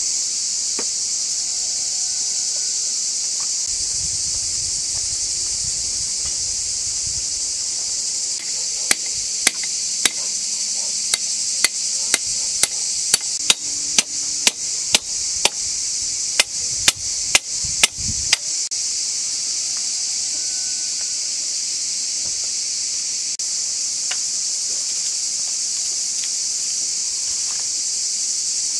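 A steady high chorus of insects throughout. Partway in come about eighteen sharp hammering blows, roughly two a second, driving thin metal rods into the ground, and they stop a good while before the end.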